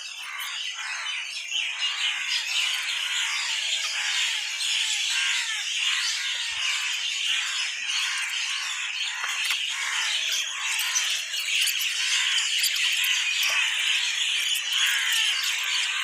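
A dense chorus of many small birds chirping and twittering at once, steady and unbroken.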